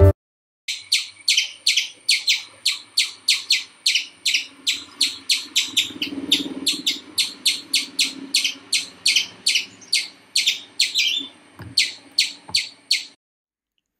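A rapid, even series of short, sharp, high-pitched chirping calls, about three a second, cutting off suddenly about a second before the end.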